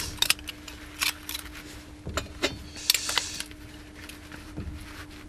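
Thin 1.6 mm steel plates being handled and set in place, clinking and knocking against each other and the bench in a handful of separate sharp clinks, over a faint steady hum.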